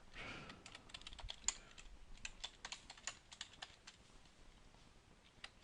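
Computer keyboard typing: a faint, quick run of key clicks that thins out to a few scattered clicks near the end.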